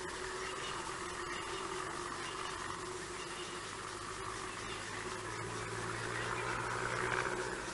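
Steady outdoor night ambience picked up by a fixed camera microphone: a low hum under an even hiss, the hiss swelling a little near the end.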